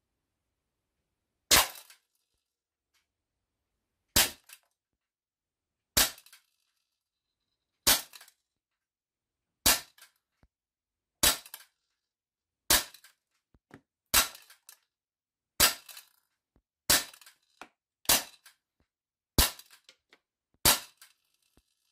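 Silver Magnum Research Baby Desert Eagle CO2 pistol, a non-blowback model, firing 4.5 mm steel BBs: thirteen sharp shots. They come about two and a half seconds apart at first and quicken to about one and a half seconds apart near the end, and each shot is followed by fainter ticks.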